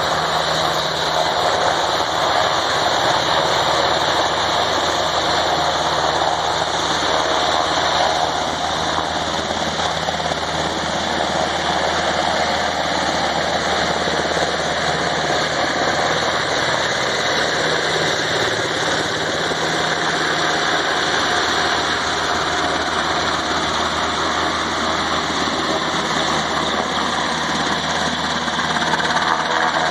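UH-60 Black Hawk helicopter's rotors and twin turboshaft engines running steadily as it lifts off and climbs with a water bucket slung beneath it.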